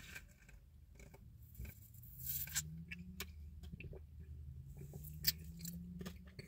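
Someone sipping a cherry slushy, faint, with scattered small clicks and a low hum under it.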